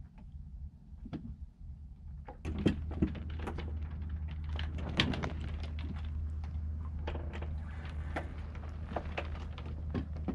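Irregular knocks and clicks from a sailboat's deck fittings and rigging under way, over a steady low rumble that grows stronger about two and a half seconds in.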